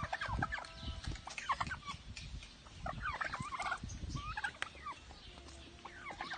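Domestic turkeys calling, a series of short, separate calls a second or so apart.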